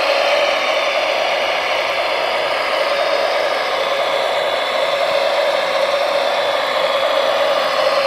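Radio-controlled wheel loader's electric drive running steadily under load as it pulls a trailer up a gravel slope.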